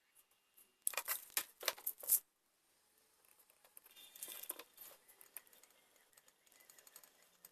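Handling noise from drill parts being worked on by hand. A quick run of sharp clicks and rattles about a second in is followed by softer rustling and small clicks.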